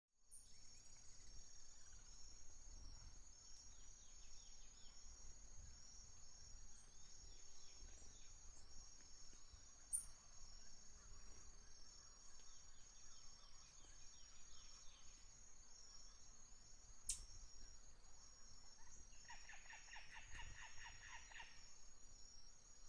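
Faint outdoor nature ambience: a steady high-pitched insect chirring that pulses regularly, with a short, rapid rattling animal call around twenty seconds in. Two brief sharp clicks sound at about ten and seventeen seconds, over a low rumble.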